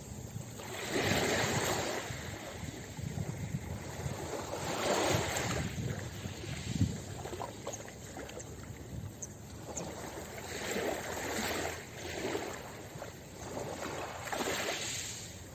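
Small waves washing in and out on a pebble shore, the hiss of the water swelling every few seconds, with a few faint clicks in the middle.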